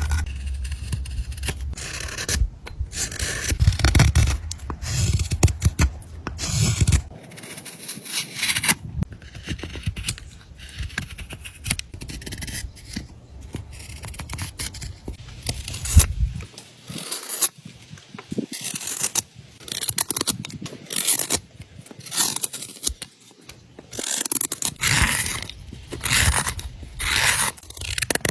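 A carving blade shaving green, wet wood on a large spoon: a run of short scraping cuts, coming in irregular clusters of several strokes. A low rumble sits under the first several seconds.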